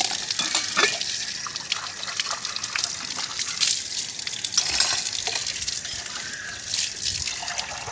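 Water running steadily from an open wall tap and splashing onto a concrete floor and steel utensils, with occasional sharp clinks of steel dishes being handled.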